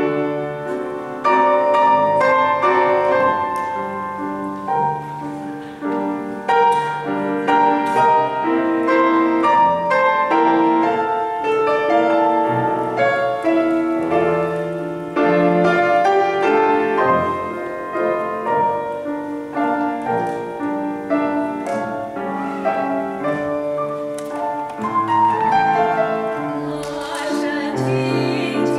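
Piano introduction for a small women's choir, a melody over held chords; the women's voices come in near the end.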